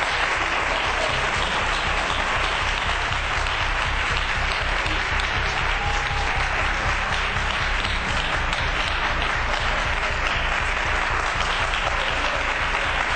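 Studio audience applauding steadily, with a regular low beat of background music underneath.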